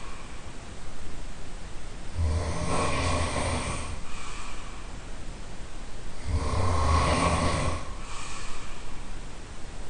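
A person snoring loudly in the room next door: two long snores about four seconds apart, each lasting well over a second, with quieter breathing between them.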